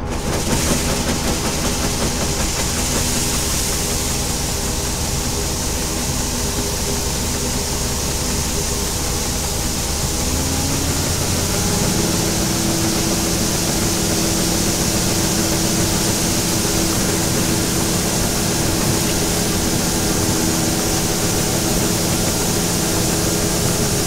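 Old John Deere combine's engine and machinery running steadily. About ten seconds in, the low rumble drops and a higher steady hum sets in, after a short rise in pitch.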